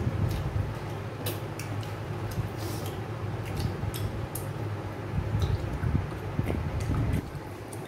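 Eating by hand: short wet mouth clicks and smacks as fingers are licked, with light scrapes of fingers on china plates, scattered irregularly over a steady low hum that drops away about seven seconds in.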